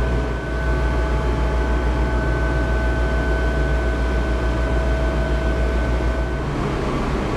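Steady low drone of a cargo ship's engine-room machinery, with thin steady high tones over it that cut off about six and a half seconds in.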